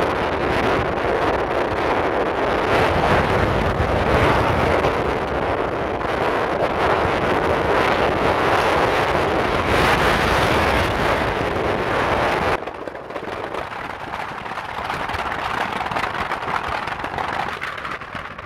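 Wind buffeting the microphone over the running noise of a moving vehicle. About twelve seconds in it cuts abruptly to a quieter, muffled rumble.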